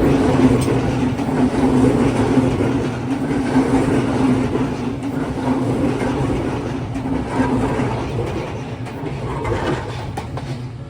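Odakyu electric commuter train running past at a level crossing: a steady low hum with rumbling wheel and track noise that gradually fades over the last few seconds as it moves away.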